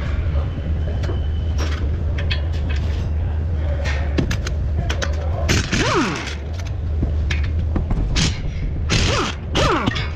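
Cordless impact wrench running in two short bursts on the brake caliper bracket bolts of a front hub, its motor pitch sweeping as it spins up and down, amid metal tool clanks over a steady low hum.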